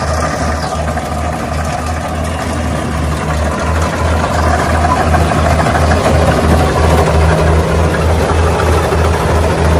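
Heavy engine of a harvesting machine running steadily with a low, pulsing rumble, growing a little louder about four seconds in.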